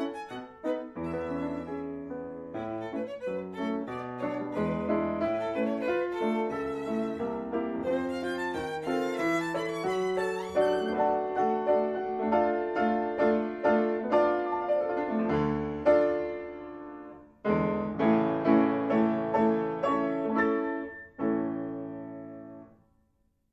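Violin and piano music playing a lively passage, then a few strong closing chords; the last chord rings out and fades away to silence shortly before the end.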